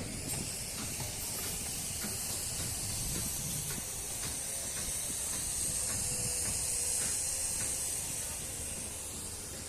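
A pressurized jet hisses steadily, high-pitched, starting abruptly. A few faint clicks sound through it.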